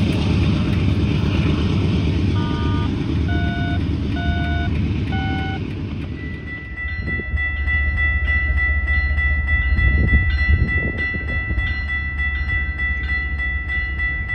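Diesel freight train rumbling as it approaches, with a few short tones in the middle. About six seconds in the sound changes to a CN freight locomotive's low engine drone, with its bell ringing steadily, struck about twice a second.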